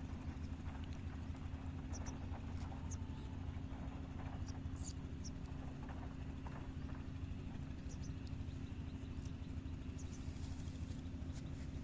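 Steady low engine hum that keeps an even level throughout, with scattered faint clicks over it.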